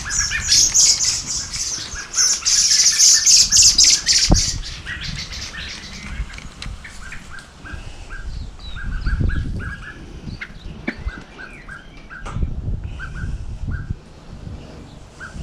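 Himalayan pink rock salt being ground over the pot: a dense, crunching rasp for about four seconds that then stops. Small birds chirp over and over throughout.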